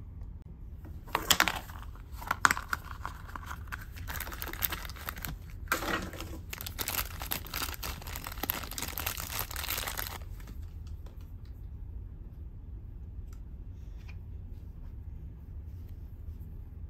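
Clear plastic wrapper around a small Minion figure crinkling and tearing open, with a couple of sharp snaps early on. It stops about ten seconds in, leaving only faint clicks of the figure being handled.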